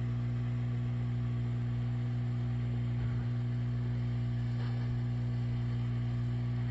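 Handheld heat gun running steadily, its fan motor humming evenly over a rush of air, shrinking heat-shrink tubing onto a crimped wire terminal.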